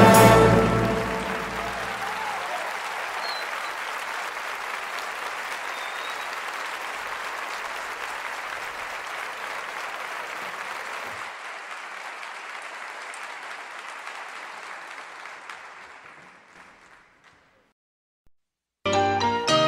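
Audience applause after a song ends, steady and then slowly fading away, followed by a moment of silence before music starts again near the end.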